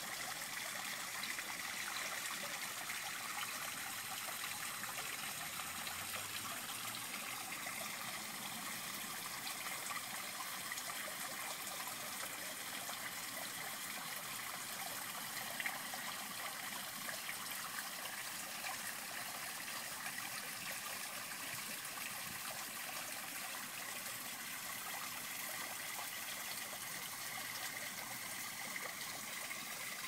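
Small rock waterfall trickling and splashing steadily into a garden pond.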